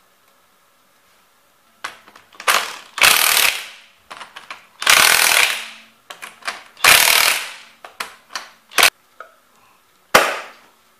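Impact wrench hammering the wheel's lug nuts tight in a series of short bursts, four longer runs with brief blips between them, then a single sharp knock near the end.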